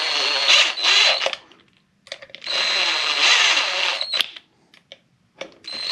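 Cordless 20V drill/driver running in two bursts of about one and a half and two seconds, its motor giving a steady whine, as it drives in the Torx screws that hold a brake rotor to an electric scooter's rear hub motor. A few small clicks come between the bursts.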